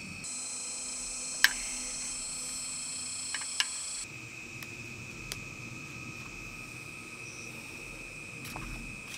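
Insects, crickets among them, chirping in a steady high drone. A shriller insect chorus joins abruptly for the first few seconds and then cuts off sharply, and a few sharp clicks stand out, the loudest about one and a half seconds in.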